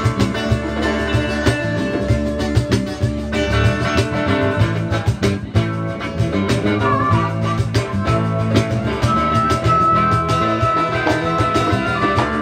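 Live blues-rock band playing with drums, bass and electric guitar. A held, wavering lead line, taken to be harmonica, comes in about seven seconds in.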